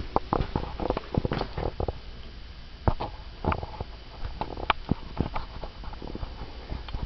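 Scattered short knocks and clicks at an uneven pace over a low rumble, with no voice.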